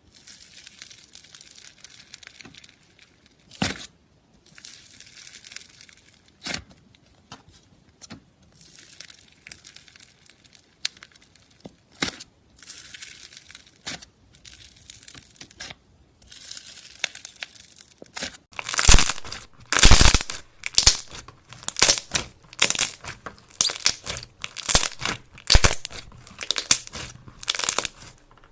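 Soft crackling and tearing of a material being handled and pulled apart, with scattered clicks, then loud crunching strokes about once a second from roughly two-thirds of the way in.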